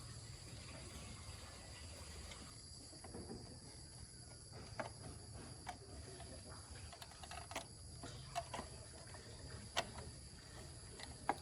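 Scattered light clicks and taps, about one every second or so through the second half, over a steady low hum.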